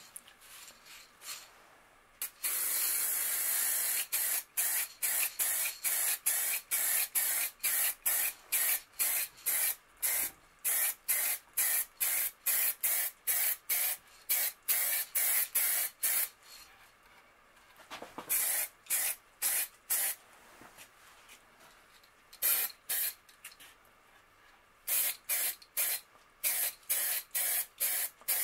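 Matt black spray paint hissing onto a cast-iron flat iron. One spray lasts about two seconds, then comes a long run of short bursts, about two a second, with a few brief pauses.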